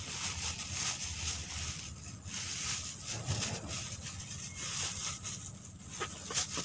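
Rustling and crackling handling noises from gloved hands working close to the microphone, over a low rumble, with a few sharp clicks near the end.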